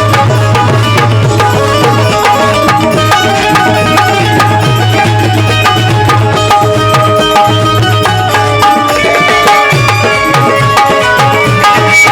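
Instrumental interlude of a Bhimgeet: tabla-style hand drums keep a fast, steady rhythm under a held melody line, with no singing.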